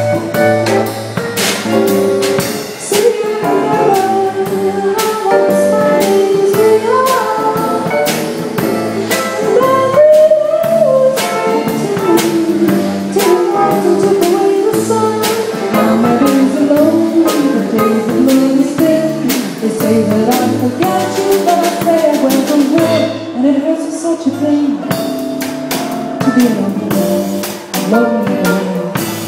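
Live band: a woman singing into a microphone over keyboard accompaniment, with percussion ticking a steady beat.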